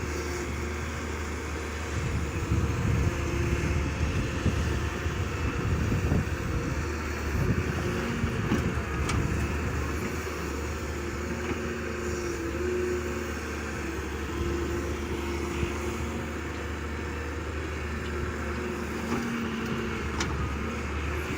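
Diesel engine of heavy construction machinery running steadily under load, with a few faint knocks.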